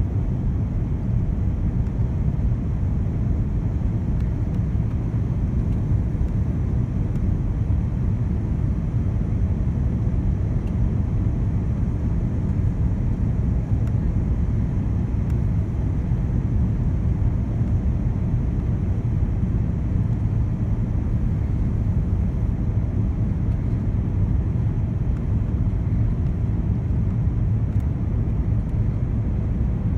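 Steady low rumble of engine and airflow noise heard inside the cabin of an Airbus A340-600 on approach to land, from its four Rolls-Royce Trent 500 turbofans and the air rushing past the fuselage.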